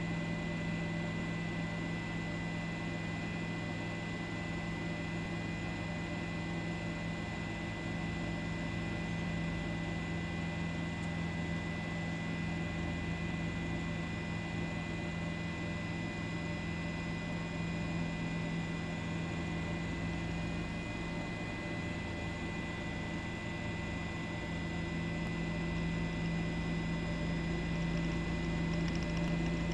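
A steady, unchanging hum with a faint high whine held above it.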